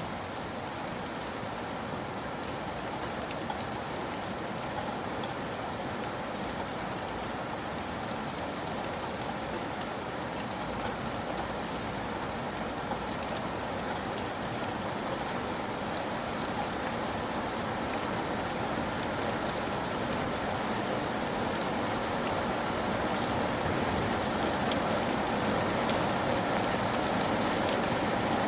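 Steady rain falling, a dense patter of drops with fine scattered ticks, slowly growing heavier over the stretch.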